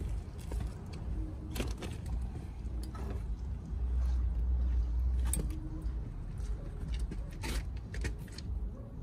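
2019 Honda CB500X motorcycle rocked and tilted on its kickstand by hand to drain the last of the engine oil: a few sharp clicks and knocks from the bike shifting, over a low rumble.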